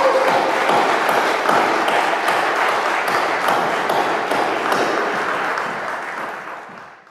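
A crowd applauding, fading out near the end.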